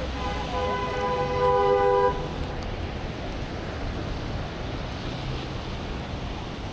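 A car horn honks once, a steady blast about a second and a half long sounding two notes at once, over a steady wash of wind and street noise.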